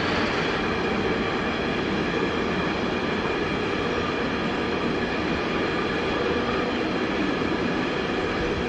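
Container freight train passing: loaded intermodal flat wagons rolling by on the rails with a steady, even wheel-on-rail noise.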